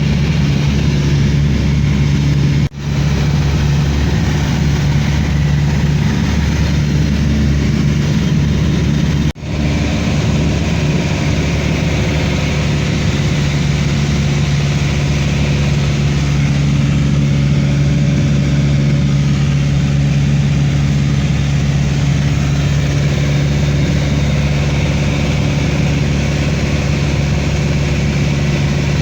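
Steady drone of an airliner's engines heard inside the cabin, a constant hum with a rushing hiss. It cuts out for an instant twice, about three seconds and nine seconds in.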